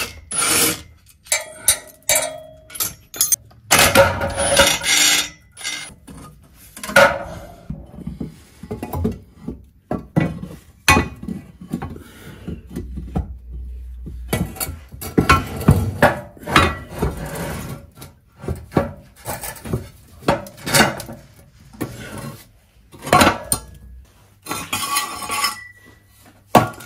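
Irregular metal clanks, knocks and scraping as a rusty car exhaust is unbolted at its flange joint, the pipe and silencer worked down from under the car and laid on a concrete floor.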